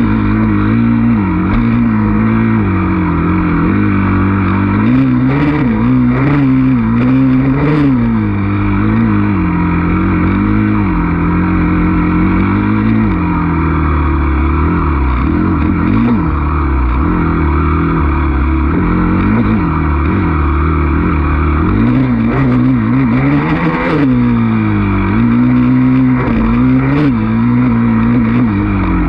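Dirt bike engine under riding load, revving up and down as the throttle is opened and closed, its pitch rising and falling every second or two. A few sharp knocks come several seconds in and again later on.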